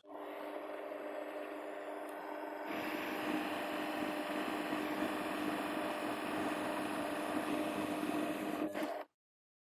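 Variable-speed mini lathe with a 550-watt motor taking a 10 thou cut in cold rolled steel at 400 RPM with a high-speed steel tool: a steady motor whine with cutting noise, the lathe working at about the limit of its power. It grows a little louder and coarser about three seconds in and stops abruptly near the end.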